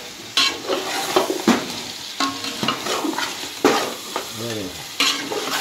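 Mutton sizzling as it is roasted (bhuna) in an aluminium pot, with a long steel ladle scraping and stirring it against the pot in repeated strokes, roughly one or two a second.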